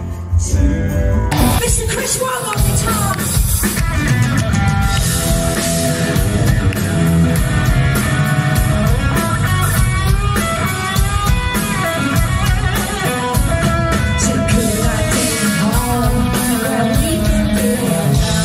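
Live band playing a rock song with singing, electric guitar and drums; the music changes abruptly about a second in.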